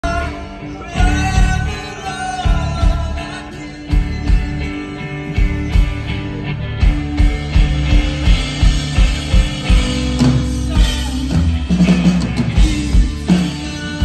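Live rock band playing: electric guitar, bass guitar and drums, loud through the stage PA, with a steady drum beat that grows busier about halfway through.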